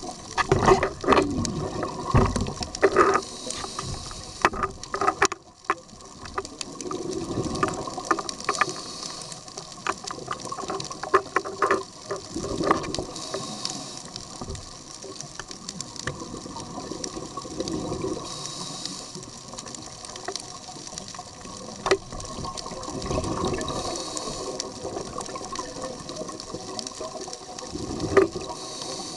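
Scuba diver's breathing underwater: the regulator hisses on each inhale, and a rush of exhaled bubbles follows, in a cycle of about five seconds. A few sharp clicks come in between.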